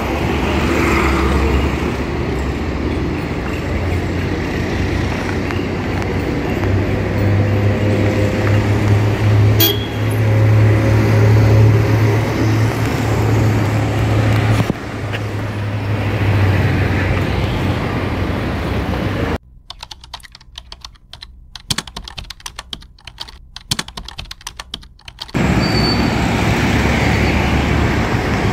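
Road traffic noise along a busy street, with a low hum that grows louder for several seconds in the middle. Later, for about six seconds, the traffic drops away to a quiet stretch of small irregular clicks and taps, then the traffic noise returns.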